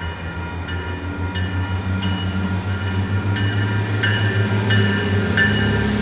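A railroad crossing bell rings in even strokes, about one and a half a second, over the low rumble of a train that grows louder toward the end.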